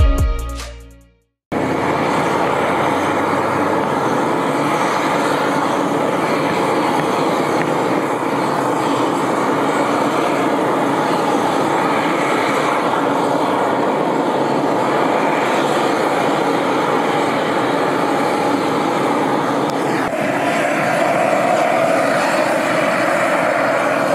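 Beryl Spring's steam vent hissing and rushing steadily, a continuous jet-like roar of escaping steam and gas, its tone shifting slightly about 20 seconds in.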